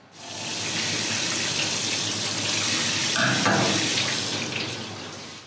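Tap water running in a steady stream over a fish held under the faucet, splashing off the fish and a wooden cutting board in a steel sink. It starts suddenly and eases off near the end.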